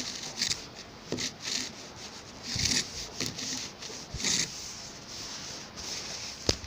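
Pump spray bottle of borax water spritzing, a string of short hissing squirts at irregular intervals.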